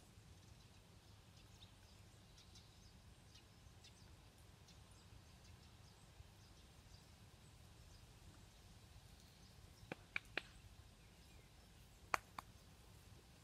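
Quiet outdoor ambience: a faint low rumble with a few faint bird chirps. About ten seconds in come three sharp clicks in quick succession, then two more about two seconds later.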